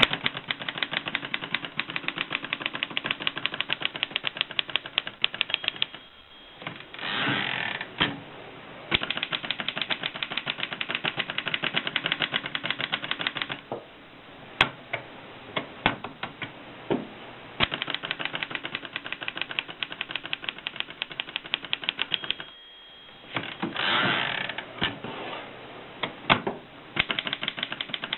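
A 1939 Erika 5 portable typewriter being typed on in fast runs of keystrokes. Twice the typing stops: a short ring of the margin bell is followed by the carriage being returned for a new line. There is a looser stretch of single key strikes in the middle.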